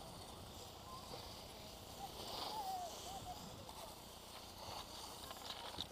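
Skis sliding and scraping over packed snow, with a faint distant voice calling out about halfway through.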